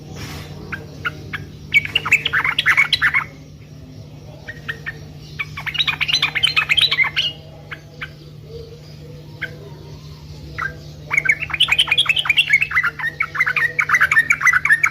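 Yellow-vented bulbul (trucukan) singing in three bursts of rapid, bubbly chattering notes, with scattered single notes between them; a steady low hum runs underneath.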